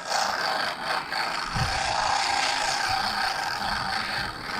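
Drag of a large conventional shark-fishing reel whirring steadily as a hooked shark runs, pulling braided line off the spool.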